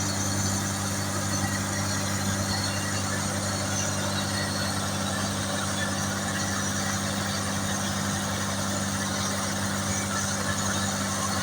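Engine of a road construction machine running steadily at a constant speed, a low even hum.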